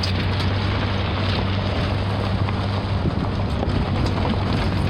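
Steady road noise of a car driving, heard from inside the cabin: a constant low engine hum under an even rush of tyre and wind noise.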